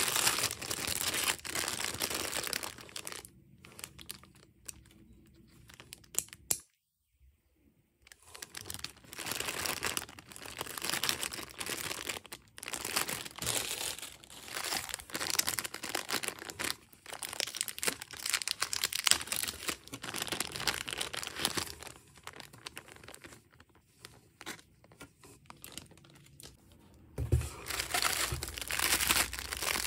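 Clear plastic packaging bags crinkling and rustling as hands rummage through a box of bagged items. It comes in crackly bursts with quieter stretches between, and a brief dropout to silence about seven seconds in.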